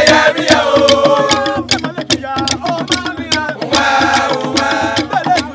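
A chorus of men singing a chant together, accompanied by small skin-headed hand drums struck with sticks and hands in a quick, steady rhythm.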